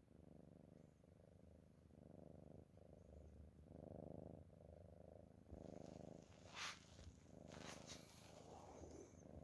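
Domestic cat's low, rough rumble with each breath, in steady pulses about once a second. Over the last few seconds a few brief, sharp scratchy noises come in.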